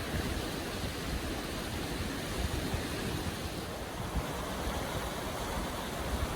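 Steady roar of heavy rushing water from Athabasca Falls, the glacier-fed Athabasca River pouring into its gorge.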